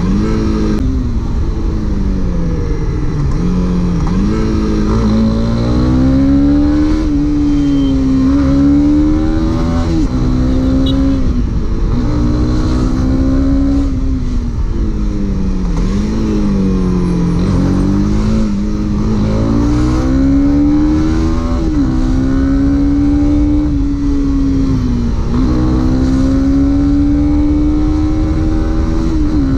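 Honda CB300R's 286 cc single-cylinder engine under way, its pitch repeatedly climbing under throttle and dropping back as the bike accelerates and changes gear.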